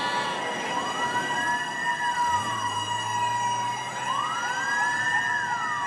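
Fire truck siren wailing, sliding slowly up and down about twice, over a steady high tone.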